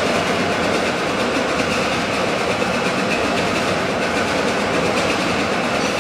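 Large twin tandem compound mill steam engine running, a steady, even mechanical noise with no single stroke standing out.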